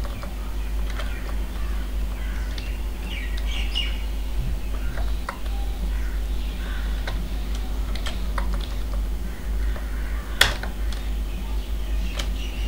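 Computer keyboard keystrokes, sparse and irregular, as code is typed and edited, with one sharp click about ten seconds in, over a steady low hum.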